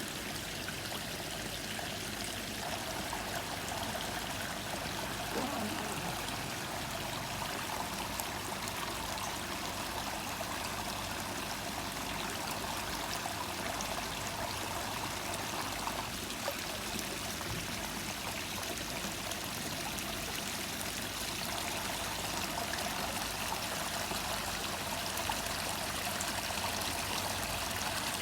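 Small garden waterfall splashing steadily into a koi pond.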